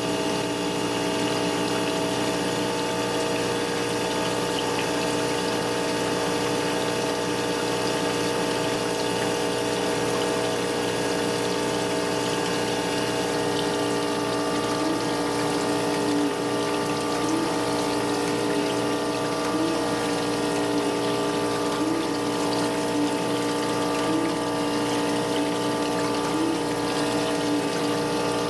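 Surface grinder running with flood coolant: a steady hum of several tones from the wheel spindle and coolant pump over the hiss and splash of coolant sprayed from a multi-stream nozzle, as the wheel grinds a hardened tool-steel cam follower. From about halfway, the hum lifts briefly in pitch about every two seconds.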